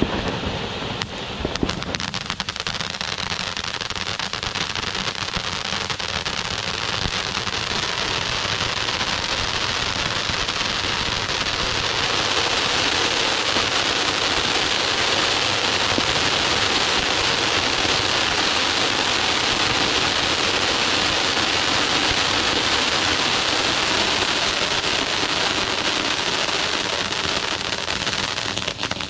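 Three RGS Angry Volcano firework fountains burning at once: a dense, steady hiss of spraying sparks with fine crackle. It grows louder over the first ten seconds or so, holds, and falls away near the end as the fountains burn out.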